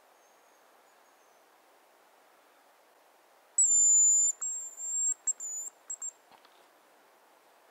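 A loud, thin, very high whistle in the manner of a hazel grouse's song, coming about halfway through: one long steady note, then several shorter broken notes over about two seconds. A fainter high whistle of the same kind is heard at the very start.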